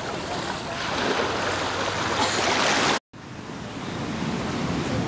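Small sea waves washing in at the water's edge, the wash swelling for about two seconds. It cuts off abruptly about three seconds in, then comes back as a lower, duller surf noise.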